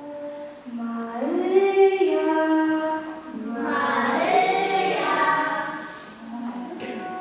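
Young voices singing a slow song in long held notes, swelling louder twice and easing off near the end.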